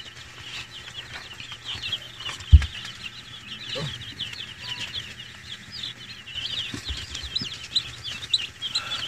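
A brooder full of day-old broiler chicks peeping constantly, many short high cheeps overlapping. A single loud thump about two and a half seconds in, with a couple of fainter knocks later.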